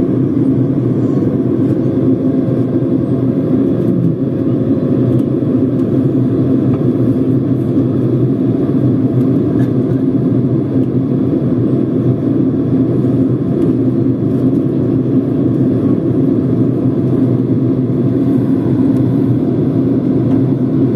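Steady cabin noise inside a Boeing 767-200 airliner on its approach to landing: an even, low rumble of engines and airflow heard from a window seat over the wing.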